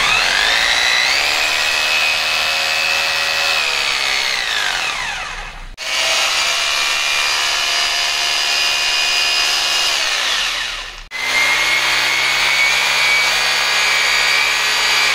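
Three corded rotary hammers run one after another with no load, in a no-load power test: a Tru-Max MX1026, an Xtra Power and a King. Each electric motor and gearbox gives a steady high whine. The first rises in pitch as it speeds up, and the first two fall away as they coast down when the trigger is released. The changes from one machine to the next are abrupt cuts.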